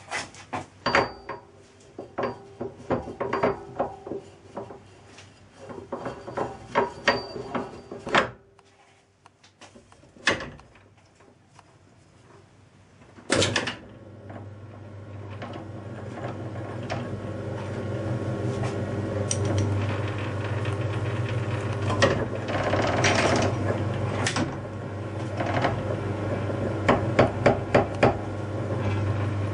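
Metal clanking and knocking as a lathe faceplate is fitted and a flywheel casting is clamped to it, with a short lull in the middle. About 13 seconds in a steady low hum starts and builds, with more metallic knocks and taps over it near the end.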